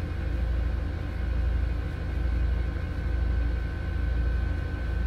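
Steady low machine hum with a faint constant high whine, from room ventilation or an air-handling fan, swelling and dipping slightly every second or two.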